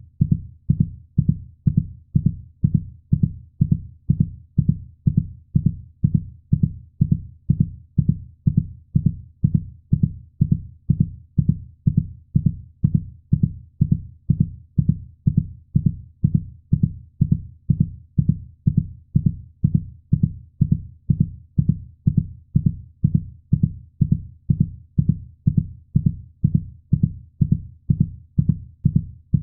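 Heartbeat sound: a steady, even rhythm of low, muffled thumps, a little faster than one a second.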